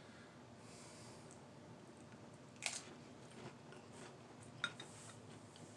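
Faint chewing of a mouthful of ramen noodles with shrimp and crackers, with two sharp clicks, one near the middle and one about three-quarters of the way through.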